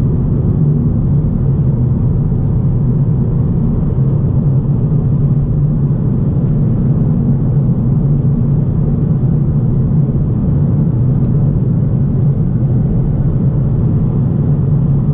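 Inside the cabin of a 2019 Kia Ceed GT with a standard, unmodified exhaust, cruising at a steady speed. Its 1.6-litre turbocharged four-cylinder drones evenly under tyre and road rumble, with no change in revs.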